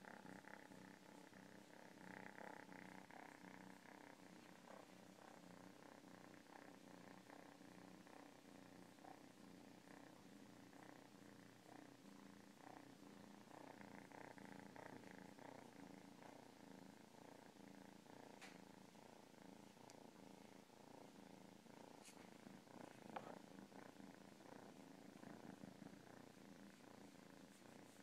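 Domestic cat purring softly and steadily, with a few faint clicks in the second half.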